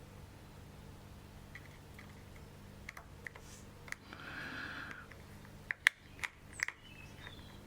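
Small metal clicks and taps of a magnetic screwdriver and tiny screws against a camera body during reassembly. A few faint ticks come first, then a run of louder, sharper clicks near the end.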